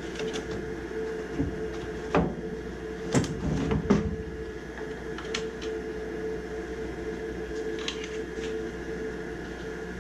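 A steady machine hum, with a few sharp clicks and knocks from handling metal parts and tools during furnace repair work, bunched in the first half.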